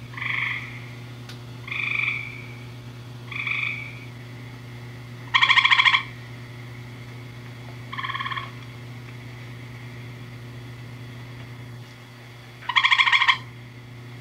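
Gray tree frogs calling: six short, rapidly pulsed trills, each about half a second long, spaced irregularly. The first three are fainter, and the later ones are louder.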